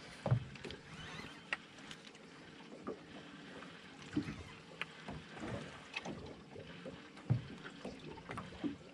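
Water lapping and slapping against a small boat's hull, with scattered short knocks and splashes; the loudest come a little after the start, about four seconds in and about seven seconds in.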